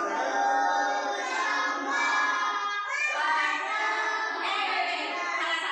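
A class of young children singing together in unison, many voices holding the same long notes.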